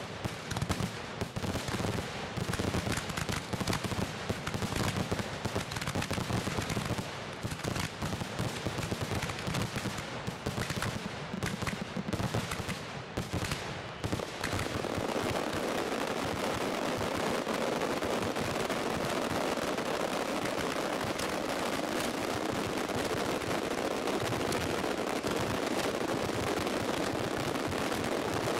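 Fireworks barrage heard close to the firing line: a rapid, continuous run of shell launches and bursts, like machine-gun fire. About halfway through it merges into a dense, steady wall of sound.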